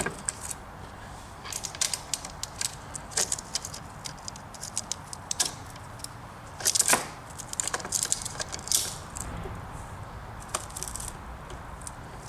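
Saw chain clicking and rattling as it is worked by hand onto a chainsaw bar and sprocket: irregular small metallic clicks and clinks, with a louder clatter about seven seconds in.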